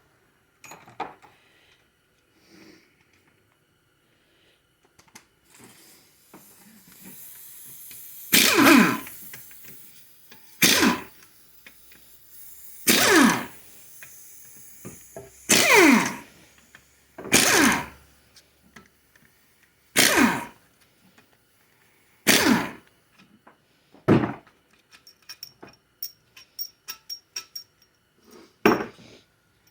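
Impact wrench loosening the bolts of a GM 4L60E transmission's front pump: about eight short loud bursts a couple of seconds apart, each dropping in pitch as the tool spins down. Light clicks follow near the end.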